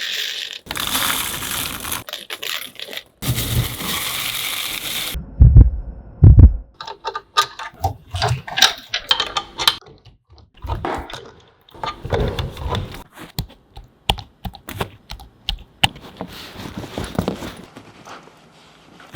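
A run of leather-workshop sounds: a hissing noise in two stretches, then two heavy thumps, then many quick clicks and taps.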